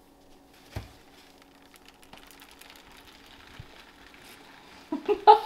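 Light handling noise on a kitchen counter, with a sharp knock about a second in and a few small clicks over a faint steady hum. Laughter breaks out loudly near the end.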